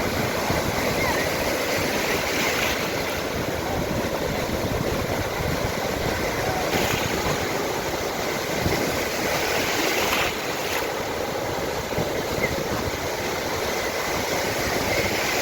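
Sea waves washing in, a continuous rush of surf that swells into louder breaks every few seconds.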